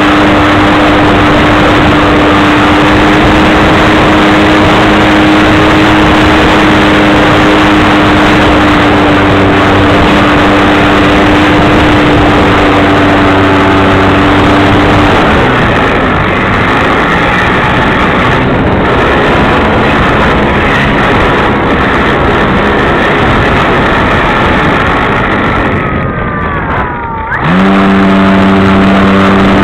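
Onboard sound of a model airplane's motor and propeller in flight, under heavy wind rush on the microphone. A steady drone changes character about halfway through as the throttle shifts. Near the end the motor dips briefly with a falling whine, then climbs straight back into a steady drone.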